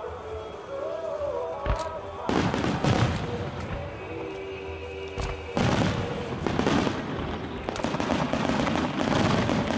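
Starmine fireworks display with launch thumps, then two dense runs of rapid bursts and sharp pops, the first starting about two seconds in and the second about five and a half seconds in. Music plays underneath.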